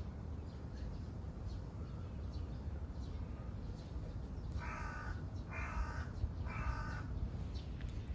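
A crow cawing three times, each caw about half a second long and about a second apart, over a low steady rumble.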